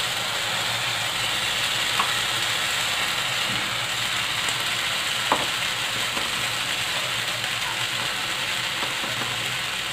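Bread-batter uthapam sizzling steadily in hot oil in a non-stick frying pan as the batter is spread out with a spoon, with two faint clicks along the way.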